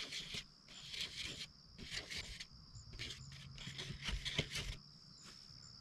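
Scattered soft rustling and scuffing sounds, in irregular clusters, over a steady high-pitched insect drone.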